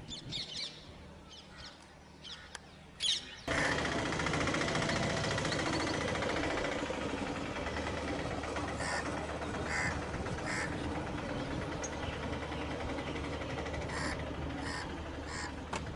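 Birds calling outdoors: a few short high calls, then, from an abrupt change about three and a half seconds in, a dense steady background din with several short, harsh calls standing out later.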